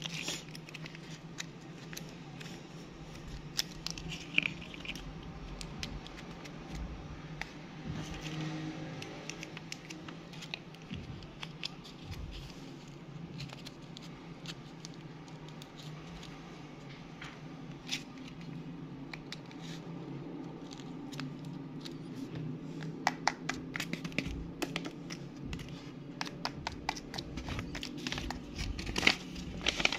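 Tape-covered paper fake nails handled and tapped: scattered small clicks, scratches and paper crinkles, busier and louder in the last several seconds, over a low steady hum.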